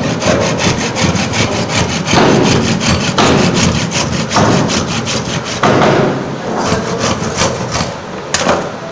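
Hand saw cutting through a small piece of wood with fast, even back-and-forth strokes, heavier strokes about once a second, and one sharper stroke near the end.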